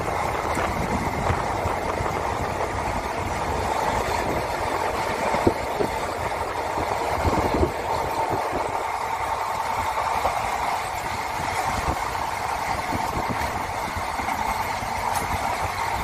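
Moving passenger train heard from inside the carriage: a steady rumble and rattle of wheels running on the rails, with scattered short knocks.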